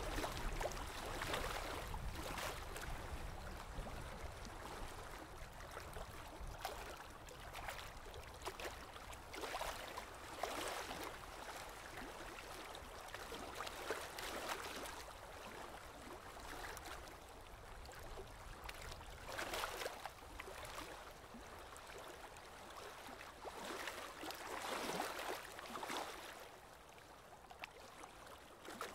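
Faint aquarium water trickling and gurgling, swelling and fading irregularly.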